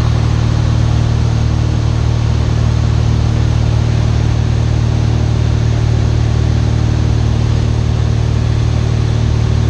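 Cessna 172 Skyhawk's piston engine and propeller droning steadily in level flight, heard from inside the cockpit.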